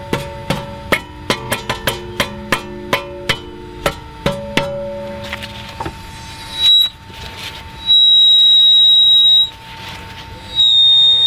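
Sharp metallic knocks, about three a second, with ringing tones, from tapping on the sheet-metal backing plate behind a Volvo V60's brake disc. Then the turning disc gives a loud, high, steady squeal three times, the last two lasting over a second each. The squeal comes from something caught between the backing plate and the disc, which the tapping has not freed.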